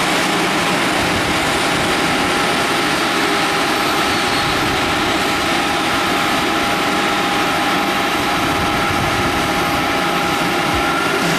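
Jet airliner engines running steadily at idle: a loud, even rush with a thin high whine held at one pitch.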